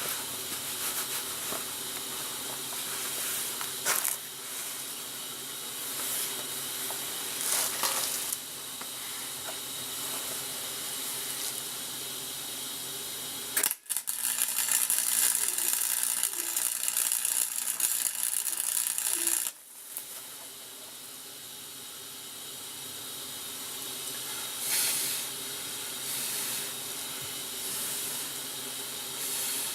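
Arc welding: a steady crackling hiss as the swing-arm joint is tack welded, with short flares about 4, 8 and 25 seconds in and a louder stretch of arc that starts about 14 seconds in and cuts off abruptly about five seconds later.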